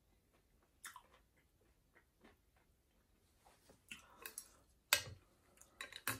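Quiet chewing of noodles with scattered wet mouth clicks and smacks, then a metal fork clinking and scraping in a glass dish of noodles near the end.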